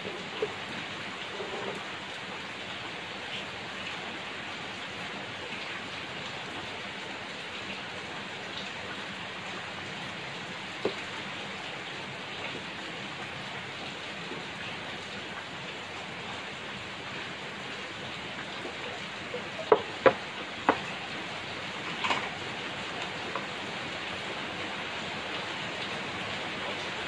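Steady rain, an even hiss throughout. About two-thirds of the way in come three sharp knocks close together, with a fainter one soon after: pieces of sawn plywood being knocked and set down on a wooden bench.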